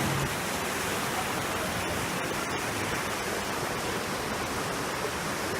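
Steady rush of flowing water, an even hiss spread across high and low pitches, with a few faint ticks about two seconds in.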